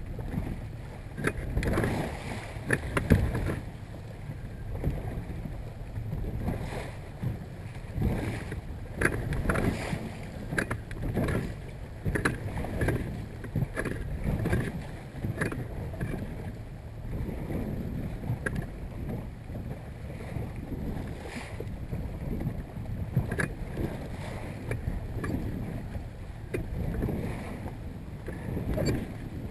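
Water slapping and splashing irregularly against the bow of a small boat running through light chop, with wind buffeting the microphone.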